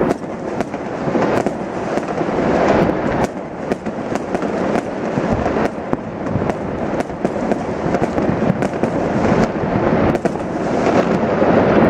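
Fireworks display: a dense barrage of aerial shells bursting in quick succession, the bangs running together into a continuous rumble.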